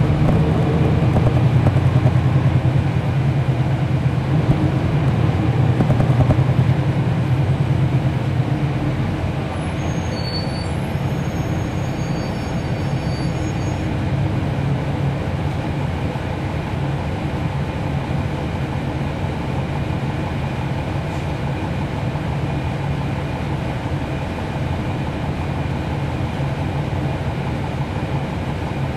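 Cummins ISL9 diesel engine of a NABI 40-SFW transit bus heard from on board, working harder for the first several seconds, then settling into steadier, slightly quieter running. A few faint high-pitched squeaks come about ten seconds in.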